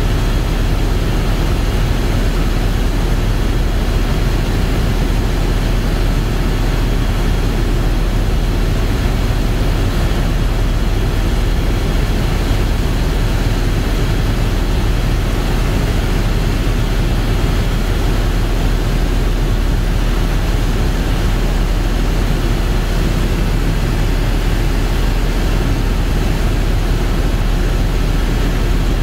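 Helicopter in flight heard from inside the cabin: a loud, steady drone of engine and rotor, heaviest in the deep bass, with faint steady whining tones above it.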